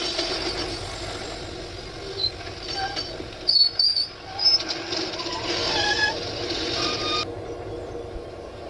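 Model English Electric DG diesel locomotive and its train of wagons running slowly along the layout track. The run has scattered short squeals at varying pitches. The running noise cuts off suddenly about seven seconds in as the train comes to a stop.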